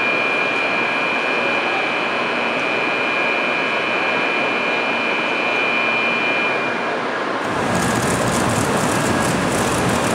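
A steady, high electronic departure-warning tone sounds at a Shinkansen platform while the train's doors slide shut, then stops about seven seconds in. After that comes a steady rushing noise from the train and the station.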